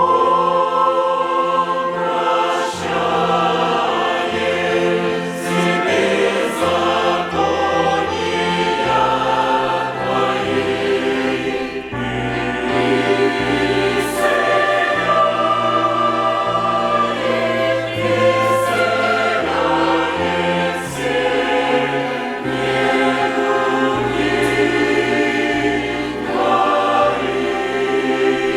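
Church choir singing a hymn in several parts with a string orchestra, coming in at full strength right at the start over a moving bass line.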